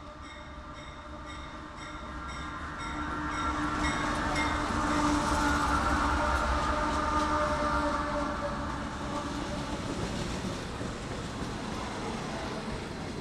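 A train passing by: its sound builds to a peak about halfway through and then fades away. It carries steady engine or horn tones, and early on there is a regular high clicking at about two strokes a second.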